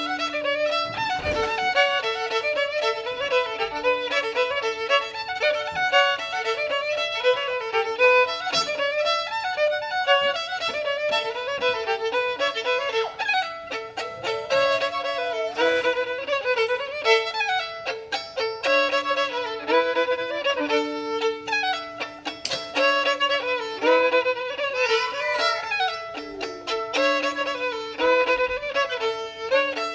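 Solo fiddle playing an old-time dance tune, a bowed melody running over a steady drone note that sounds beneath it.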